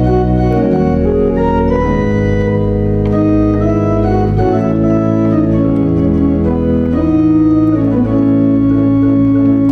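Church pipe organ playing slow held chords over a deep pedal bass, the chords changing every second or two.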